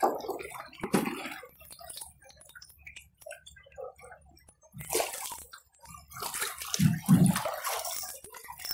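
River water splashing and sloshing around a canoe in irregular bursts. It is quieter for a couple of seconds in the middle, then sloshes loudest about seven seconds in.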